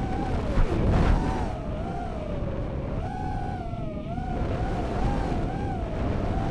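Racing quadcopter's Racerstar 2306 2700KV brushless motors and DAL 5045 three-blade props whining, the pitch wavering up and down as the throttle changes, with a brief dip and surge about a second in. Heard from the drone's own onboard camera microphone, with wind rumble underneath.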